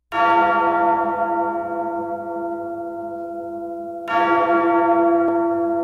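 A large bell tolls twice, about four seconds apart, each stroke ringing on and slowly fading. It is a recorded bell laid over the pictures as an intro.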